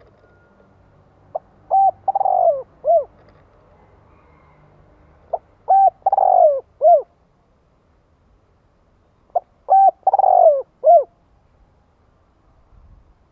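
Spotted dove cooing: three repeated phrases about four seconds apart. Each phrase is two short coos, a longer coo that falls in pitch, and a final short coo.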